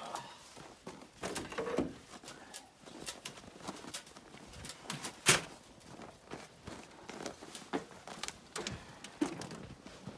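Footsteps on snow and irregular knocks and clunks as a person climbs up onto a tractor, the sharpest knock about five seconds in. No engine is running.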